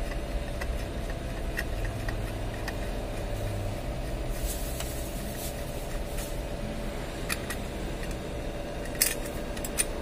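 Steady hum of a switched-on Canon iR6020 photocopier, with a few light clicks and taps as a screw is undone on its pulled-out fixing unit; the sharpest click comes about nine seconds in.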